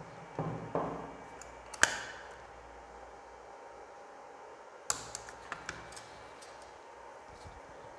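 Scattered clicks and light knocks from handling small tools and equipment while joining fibre optic cable: soft knocks in the first second, a sharp click about two seconds in, another sharp click about five seconds in, then a few small ticks.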